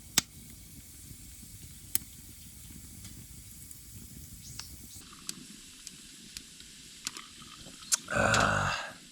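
Wood fire crackling, with sharp pops every second or two over a low rushing noise. Shortly before the end comes a brief, loud, voice-like sound.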